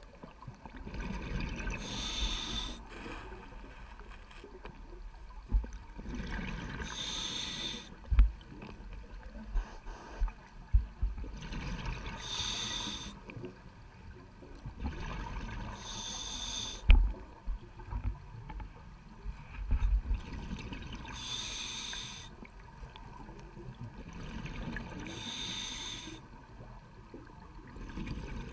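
Scuba diver's breathing heard underwater: a hiss through the regulator on each breath in, roughly every four to five seconds, with the rumble and gurgle of exhaled bubbles between. A few dull thumps, the loudest about 8 and 17 seconds in.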